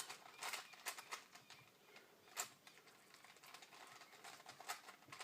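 Faint, irregular clicking and clacking of a plastic 4x4 Rubik's Cube's layers being turned by hand, with one sharper click about halfway through.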